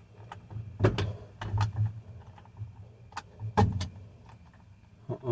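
Irregular metallic clicks and knocks, about half a dozen over a few seconds, with a faint low hum underneath.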